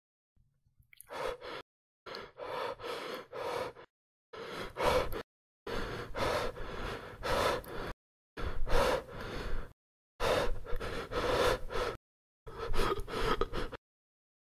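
Heavy, gasping breaths, in about seven short stretches, each cut off sharply into dead silence.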